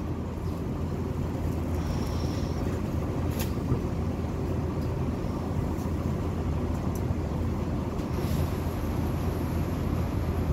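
Inside a Tobu Skytree Line commuter train as it pulls away from a station: a steady low rumble of the car, with a few light clicks, and some added hiss from about eight seconds in as it gets under way.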